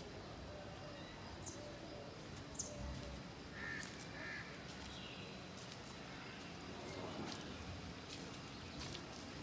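Faint outdoor background with a few short, high animal calls, two of them close together about four seconds in.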